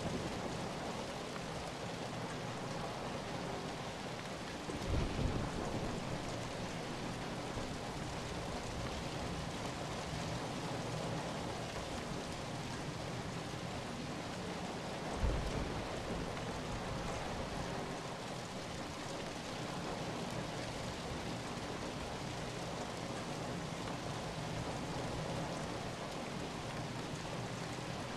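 Steady rain falling, an even hiss. Two brief low rumbles come about five and fifteen seconds in.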